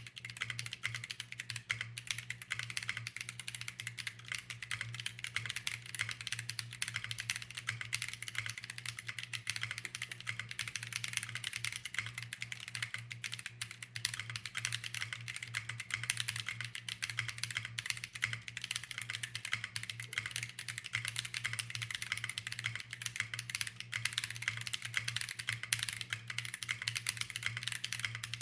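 Fast, continuous typing on a JRIS75 custom mechanical keyboard with Corsa tactile switches, an aluminum plate, a hotswap PCB, PBT keycaps and no case foam: a dense, unbroken run of key clacks. A steady low hum sits underneath.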